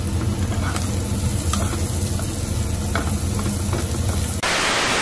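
Diced bell peppers sizzling in oil in a nonstick wok while a wooden spatula stirs them, scraping and tapping the pan a few times. A steady low hum runs underneath, and a loud hiss cuts in near the end for about a second.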